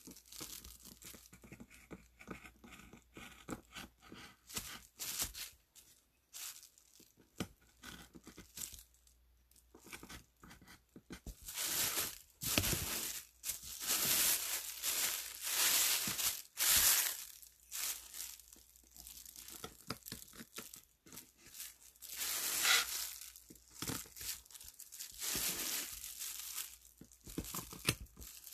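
Small woodcarving knife cutting into a woodblock: a run of short scratchy strokes of the blade on the wood, with louder rustling bursts about halfway through and again near the end.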